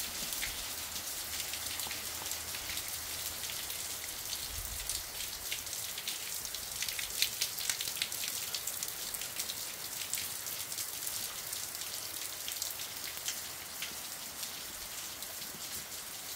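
Steady rain falling, heard from under a tiled veranda roof, a dense patter of drops splashing on wet paving and dry leaves. A few louder splashes stand out about seven seconds in.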